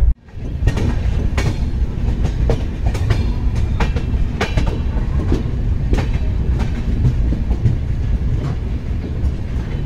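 Passenger train running: a steady low rumble with irregular sharp clacks as its wheels pass over rail joints.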